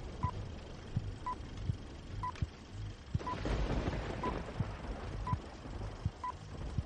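Film-leader countdown sound effect: a short, high, pure beep about once a second, one for each number, over a bed of crackle and scattered pops like worn film, the crackle growing louder about three seconds in.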